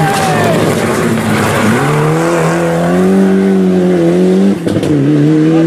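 Rally car engine pulling hard at high revs. About two seconds in the revs dip and climb again, and about four and a half seconds in there is a short break in the engine note, after which it picks up lower and rises, like a gear change.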